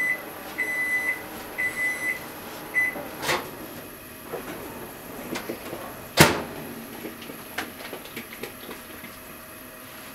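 A kitchen appliance gives four short, high electronic beeps in the first three seconds. A sharp knock follows, then a louder sharp knock about six seconds in, with a few faint clicks after it.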